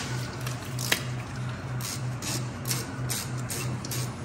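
Hand ratchet turning a brake caliper pin bolt, clicking in short irregular strokes, with one sharper metallic click about a second in. A steady low hum pulses underneath.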